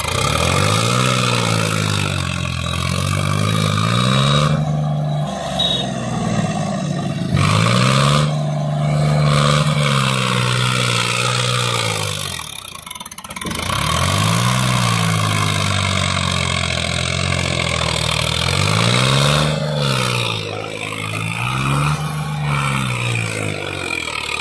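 Sonalika DI 35 tractor's diesel engine revving hard under a heavy load, pulling a fully loaded trolley out of soft ground. Its note climbs, holds high and falls back about five times as the throttle is opened and eased.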